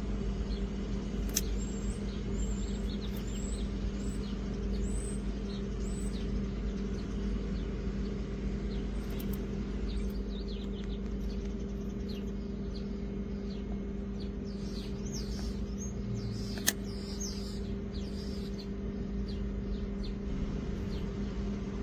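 Small birds chirping repeatedly in short rising calls over a steady low hum and rumble, with one sharp click near the end.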